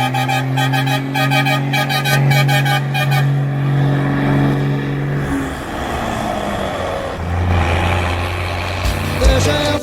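Volkswagen 24.250 truck's diesel engine rumbling, held at steady raised revs for about five seconds with a fast rhythmic ticking over it early on, then dropping back and settling at a lower steady note.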